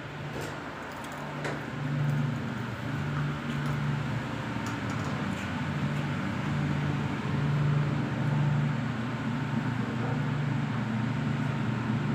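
A steady low mechanical hum that swells and eases a little, with a few faint light taps.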